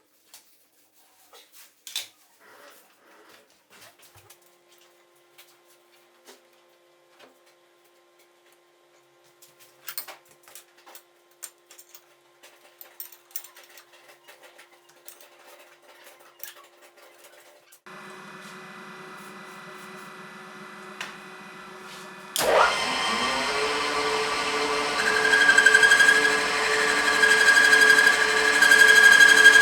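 Metal lathe: faint clicks and knocks of handling at first. A motor hum starts about eighteen seconds in, and a few seconds later the machine comes up suddenly into a loud, steady running sound with high ringing tones, growing louder near the end.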